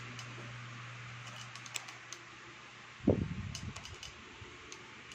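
Electric fan running with a steady hiss and a low hum. A few light clicks come in the first half, and a sudden loud thump about three seconds in.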